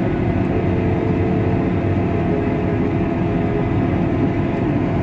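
Case IH Quadtrac 620 tractor's diesel engine and running gear droning steadily under load while pulling a seed drill, heard from inside the cab.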